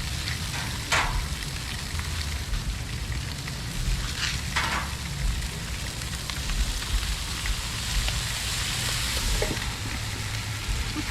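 Food frying on a Blackstone propane flat-top griddle: a steady sizzle, with two brief louder bursts, about a second in and near the middle.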